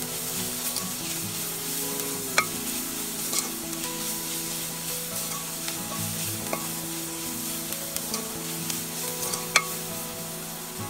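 Chopped onions and greens sizzling as they fry in a metal pot, with a spatula scraping and stirring them through. Sharp clicks stand out about two and a half seconds in and again near the end, over soft background music.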